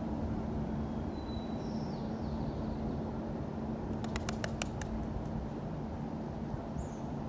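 Steady low rumble of city street traffic with a constant low hum, a few short high bird chirps, and a quick run of sharp clicks about four seconds in.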